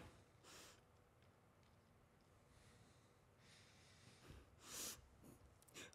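Near silence broken by two faint breaths from a woman close to tears, one shortly after the start and a slightly louder one near the end.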